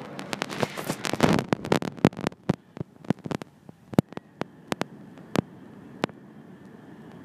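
Sharp clicks and crackles of handling noise on the camera's microphone, coming thick and fast for the first two seconds, then thinning out and stopping about six seconds in. Under them runs a steady hum of distant city traffic.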